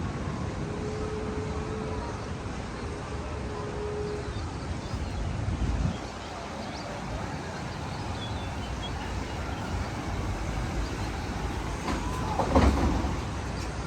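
Steady rail rumble of a roller coaster train in the Magnum XL-200's tunnel, with two short steady tones in the first few seconds and a louder clatter near the end.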